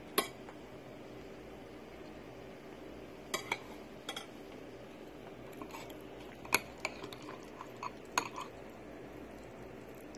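Metal serving spoon clinking against ceramic plates and a serving bowl as rice and mutton curry are dished out. There are about nine short clinks scattered irregularly, the loudest just after the start and about two-thirds of the way through.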